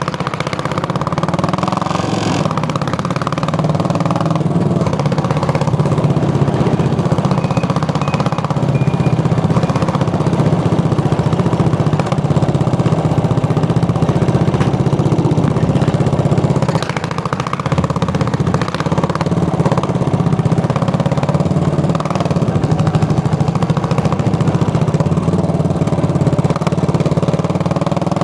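Single-cylinder motorcycle engine running on the move with a steady exhaust note, dipping briefly about seventeen seconds in.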